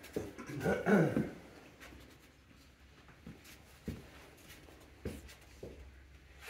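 Quiet room with a brief voice sound about a second in, then a few soft knocks.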